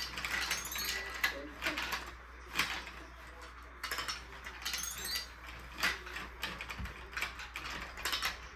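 Plastic marble run pieces and glass marbles clicking and clattering, a string of quick irregular knocks as they are handled and run through the track.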